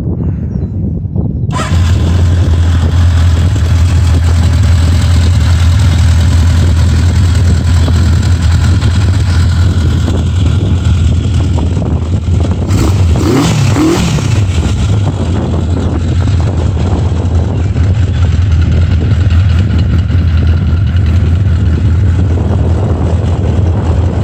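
Honda CB900F's air-cooled inline-four engine starts about a second and a half in and settles into a steady idle. It is revved briefly once about halfway through, the pitch rising and falling back to idle.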